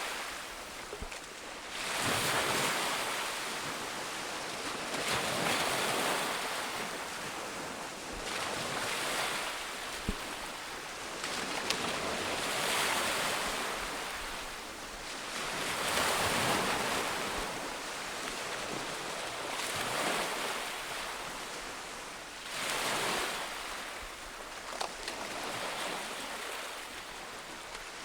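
Ocean waves breaking on a beach, the surf swelling and washing out again every three to four seconds, with some wind.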